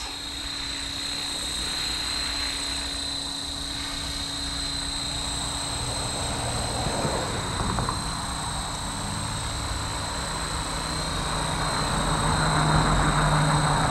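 Electric Blade Fusion 360 RC helicopter in flight: a steady high-pitched motor and rotor whine, getting louder near the end.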